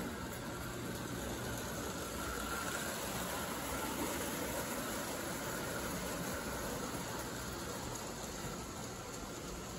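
Several O-gauge toy trains running together on tinplate three-rail track: a steady rumble of wheels on the rails and electric motors.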